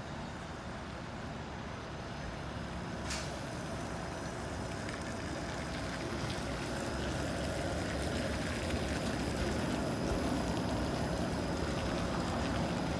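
Bombardier Flexity Outlook streetcar approaching and rolling past on wet rails, its rumble building steadily louder, with a thin high electric whine coming in as it draws near. A single sharp click sounds about three seconds in.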